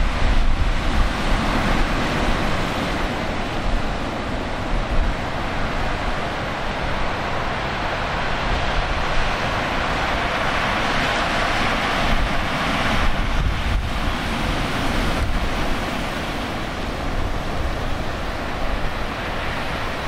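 Typhoon wind and heavy surf: a steady roar of wind and breaking waves, with gusts buffeting the microphone in a low rumble. The roar swells for a few seconds a little after halfway.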